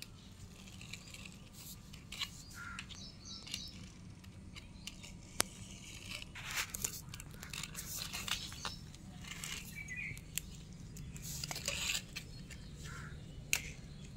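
Scattered light clicks and scrapes of plastic toy vehicles being moved about, with a few faint bird chirps.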